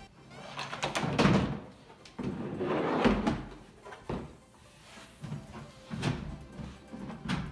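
A large plastic tub being opened and its contents handled: several scraping, rubbing swishes and a few knocks of hard plastic.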